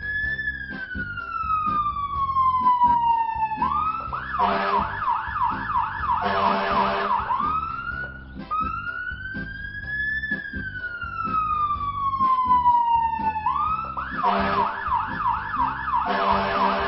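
Toy fire truck's electronic siren: a slow wail that rises briefly and then falls, followed by a few seconds of rapid warbling, the whole cycle heard twice.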